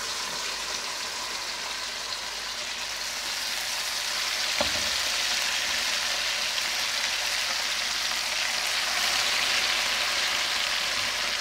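Marinated fish pieces deep-frying in hot oil in a wok, a steady sizzle. A single sharp knock comes about four and a half seconds in, and the sizzle grows louder after it.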